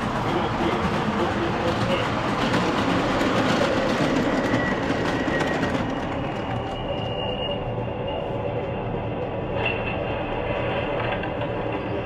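MTH O-scale model subway trains running on three-rail track: a steady rolling rumble, louder in the first half, with a thin high squeal about halfway through.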